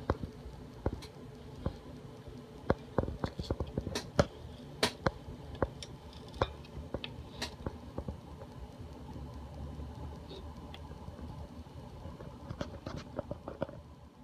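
Irregular clicks and knocks, a few sharp and loud, over a low steady rumble.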